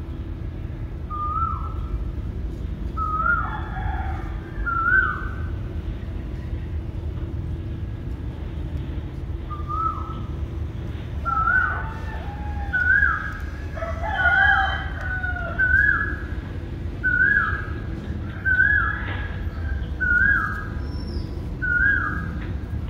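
Chickens calling in the background: a series of short calls, each dropping in pitch, a few early and then about every second and a half through the second half, over a low steady rumble.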